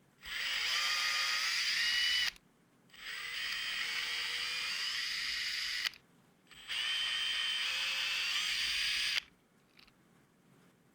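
Electric screwdriver running three times, each run a steady whine of two to three seconds with short pauses between, as it backs out the screws holding a skateboard wheel's drive gear.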